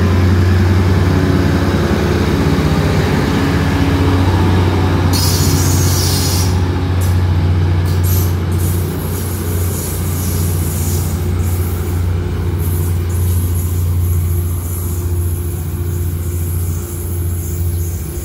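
Diesel multiple-unit passenger train pulling out and moving away, its engines giving a steady low drone that slowly fades. A high hiss joins about five seconds in.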